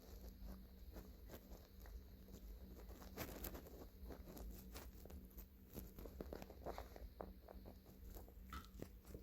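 Near silence: faint, scattered clicks and crackles over a steady low hum, with no full stomach growl.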